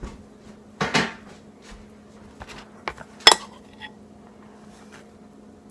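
A spoon clinking and knocking a few times against a dish while spreading frosting, the loudest knocks about a second in and just past three seconds, over a faint steady hum.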